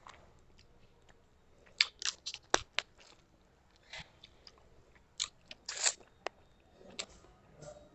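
Close-up eating sounds: biting and crunching on the bones and cartilage of a cooked fish head, heard as sharp, short crunchy clicks, in a cluster about two seconds in and another near six seconds.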